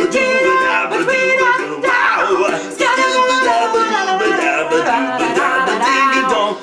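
A man and a woman singing together over a strummed ukulele.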